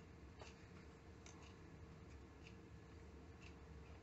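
Near silence: quiet room tone with a faint steady hum and a few faint, light ticks from hands handling the thread and hair at the vise.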